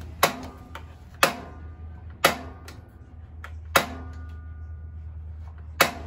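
Piezo spark striker on a gas RV range clicking five times, a second or two apart, while the oven gas knob is held down to light the oven pilot. A steady low hum runs underneath.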